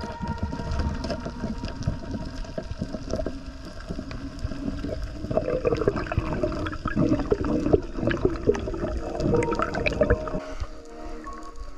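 Water gurgling and sloshing with bubbles and many small irregular clicks and knocks, as picked up by an action camera underwater.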